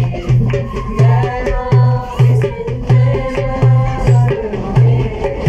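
Sri Lankan folk song sung by a group of voices to a hand drum beaten by hand, in a steady beat about twice a second with quicker slaps between the beats.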